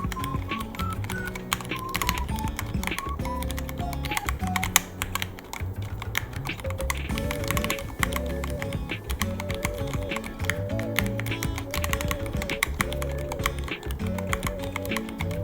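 Typing on a Ducky One 3 mechanical keyboard: a quick, irregular stream of key clicks that runs on throughout. Background music with a melody and a bass line plays underneath.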